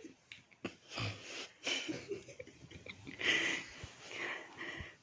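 A sleeping person's wheezy snoring breaths, several uneven ones, the strongest about three seconds in.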